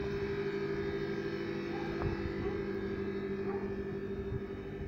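Cold-room refrigeration condensing unit (7.2 kW cooling capacity) running with a steady hum, with a few faint knocks in the middle.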